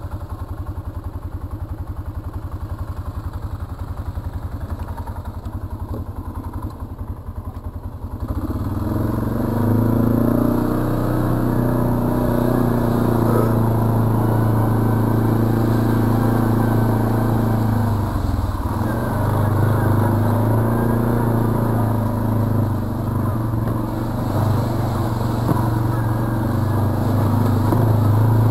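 Arctic Cat 700 ATV's single-cylinder four-stroke engine idling with an even low pulsing. About eight seconds in it is throttled up and runs louder and steadier under load as the quad moves off along the trail. It eases off briefly and picks up again about two-thirds of the way through.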